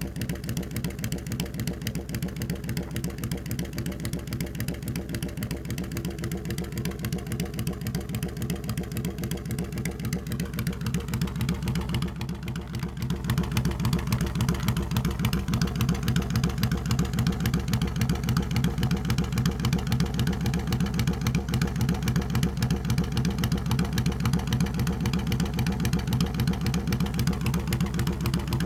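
Yamaha V Star 1100's air-cooled V-twin engine idling with an even, pulsing beat, a little louder from about halfway on.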